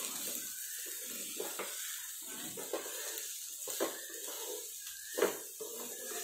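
Chopped vegetables (cabbage, carrot, capsicum) sautéing in oil in a non-stick kadhai: a steady sizzling hiss under irregular scrapes and knocks of a wooden spatula stirring them, the loudest knock about five seconds in.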